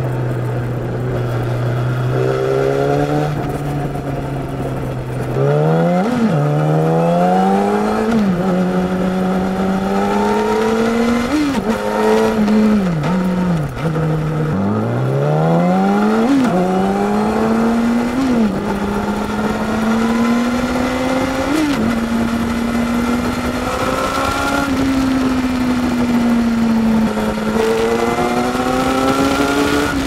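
Yamaha YZF-R6 (RJ11) inline-four engine with an SC-Project exhaust, heard from the rider's seat. It holds steady revs at first, then accelerates hard through the gears, the revs climbing and dropping at each shift, before settling into a steady cruise. At the shifts the revs flick up briefly because the throttle grip sticks slightly.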